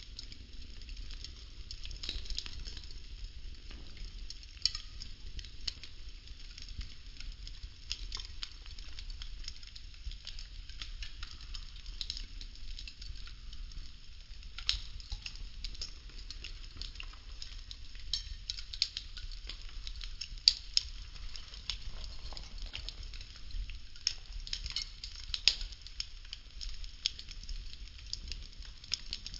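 Burning popsicle-stick wood crackling steadily, with irregular sharp pops, a few of them louder than the rest.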